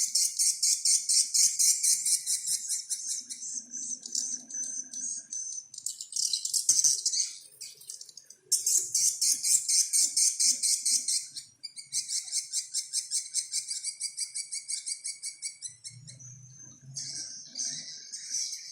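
A bird's natural call: long runs of rapid, evenly repeated high chattering notes, broken by short pauses about seven and twelve seconds in, and fading somewhat near the end. It is the plain, unenhanced call used to lure birds of its kind.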